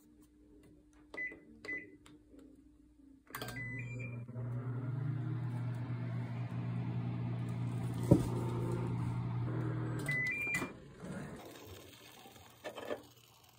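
Microwave oven heating at 600 watts: a few short button beeps as it is set, then the oven running with a steady hum for about seven seconds, with one sharp click partway through. It stops with a beep, followed by a few faint clicks.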